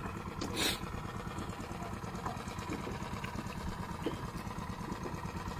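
Small boat's engine idling steadily with a low, even chugging rumble, and a brief rush of noise about half a second in.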